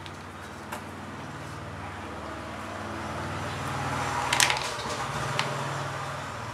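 Woven fiberglass cloth rustling and crackling as it is laid over a resin-wet mold, loudest about four seconds in with a couple of sharp crackles. A steady low hum runs underneath.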